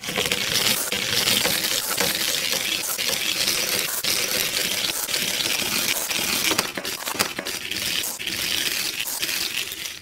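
A continuous clattering rattle made up of many small, rapid clicks.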